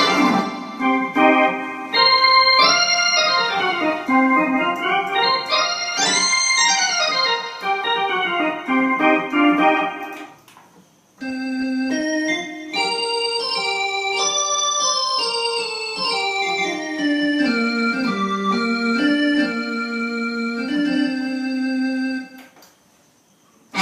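Korg electronic keyboard playing a fast organ-like melody in two phrases, with short runs of notes rising and falling. There is a brief break about ten seconds in, and the playing stops shortly before the end.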